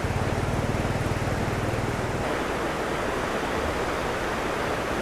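Flooded river water rushing steadily through a sluice, a continuous even roar, with a low steady hum beneath it for about the first two seconds.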